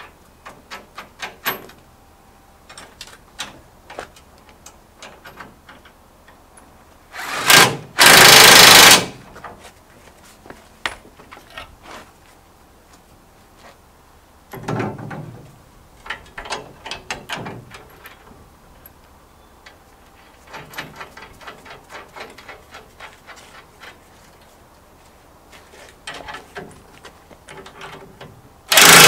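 Cordless drill driving bolts through steel formwork brackets in short bursts of about a second, once after a few seconds, more softly about halfway, and again near the end. In between, scattered metallic clinks and taps of the steel brackets, bolts and washers being handled.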